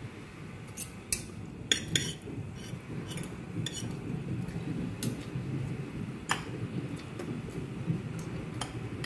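Spoon and fork clinking and scraping against a plate and a rice bowl while scooping rice with string beans and sardines: a series of sharp, irregular clinks scattered throughout, over a low steady background.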